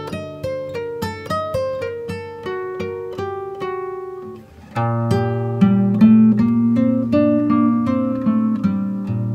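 Background acoustic guitar music: single picked notes that ring and fade, then a short dip and fuller, louder strummed chords from about halfway through.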